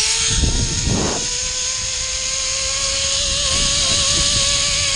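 Zip line trolley pulley running fast along the steel cable, a steady whine, with wind rushing over the microphone and a few rumbling knocks about a second in.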